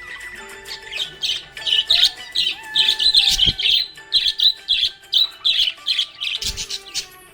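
Budgerigars chirping: a quick run of short high chirps, several a second, busiest and loudest through the middle.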